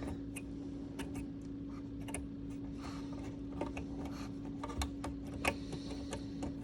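Scattered light clicks and taps of plastic panel parts and a wiring connector being handled on a dishwasher control panel, irregular, a dozen or so, over a steady low hum.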